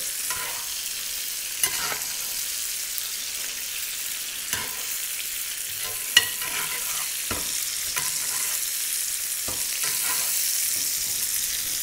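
Butter and sage sizzling around pancetta-wrapped monkfish fillets frying in a pan, while a spoon bastes the fish with the hot butter, clinking against the pan several times.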